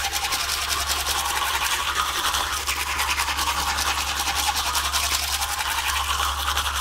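Teeth being scrubbed hard with a toothbrush: fast, steady, scratchy brushing strokes over a low steady hum.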